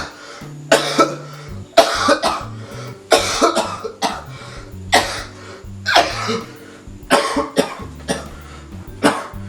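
A person coughing over and over, about a dozen harsh coughs roughly a second apart, some in quick pairs, over background music.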